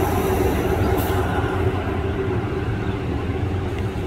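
Boeing KC-135R Stratotanker's four CFM56 (F108) turbofan engines running at low power while it taxis: a steady rumble with a hum. The high hiss drops away about a second in.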